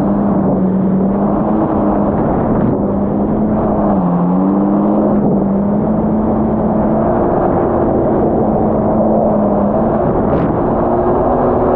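Yamaha GP1800R SVHO jet ski's supercharged four-cylinder engine running at a steady pace, its pitch dipping briefly twice and then creeping up in the second half. Two short sharp knocks sound over it.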